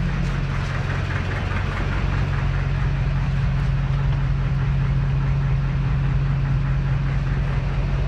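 A steady low mechanical hum, as of a motor or engine running, unchanging throughout.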